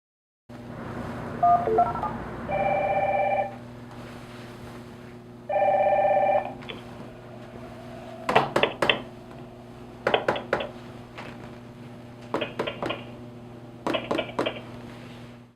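IP video door phone placing a call from its one-touch call button: a few short beeps, then two ring tones of about a second each, then four short rattling ring bursts about two seconds apart, over a steady electrical hum.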